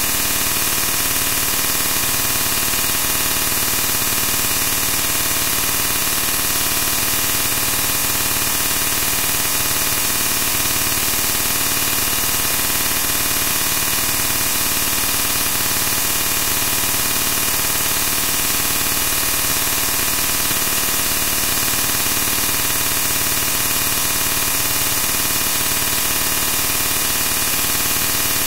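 Steady, loud static hiss, unchanging, with no distinct events.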